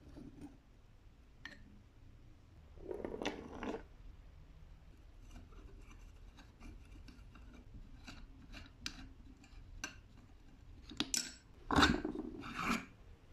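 Screwdriver turning out the handle screws of a rusty cast-iron hand plane, with metal scraping and small clicks. Near the end come louder knocks and scrapes as the rear handle is worked off its threaded rod against the plane body.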